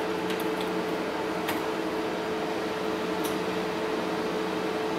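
Steady machine hum with a constant tone, from the Fairlight CMI Series III system's cooling fans, with a few faint clicks.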